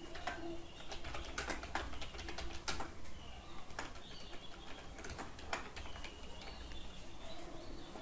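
Computer keyboard typing: irregular runs of key clicks, densest in the first three seconds and sparser after, with faint tonal calls in the background.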